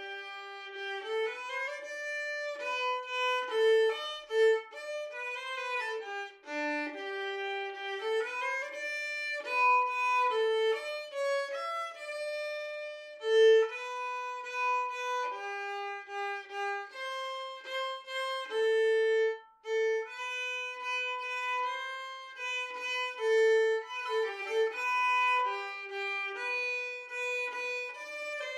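Background music: a violin playing a melody, one held note after another.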